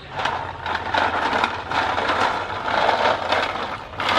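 River snails' shells clattering against one another and a metal basin as hands stir them in water, a dense rattle of small clicks that swells in waves about once a second.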